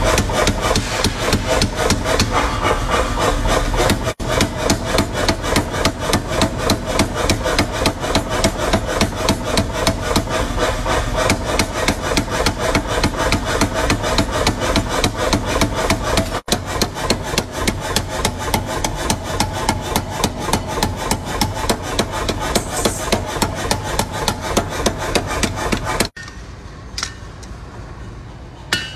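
Power hammer pounding a red-hot steel knife blade on its die, a fast, even run of heavy blows several times a second. The hammering stops shortly before the end.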